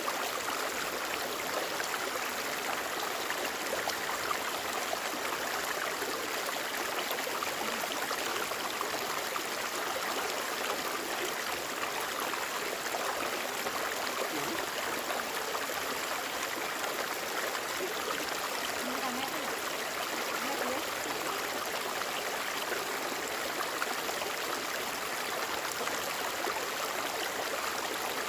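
Flowing water rushing steadily, an even noise with no breaks or distinct splashes.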